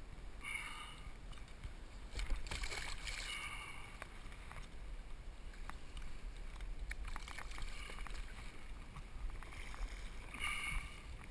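Water sloshing and splashing around a plastic sit-on-top kayak, with scattered drips and a low wind rumble on the microphone; the loudest splash comes about two seconds in.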